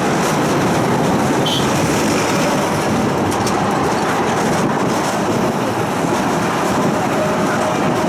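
A city tram running along its track, heard from inside the car: the steady noise of its wheels on the rails and its running gear.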